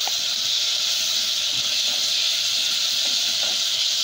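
Chopped tomato, onion, garlic and chillies sizzling in hot oil in a pan: a loud, steady hiss of frying.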